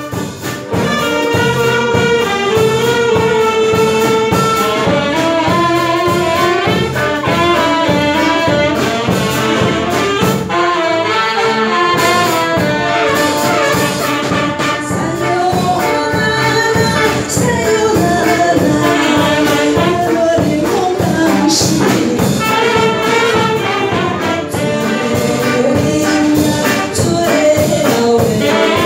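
Live band playing a song, with saxophones and brass carrying the melody over a steady drum beat.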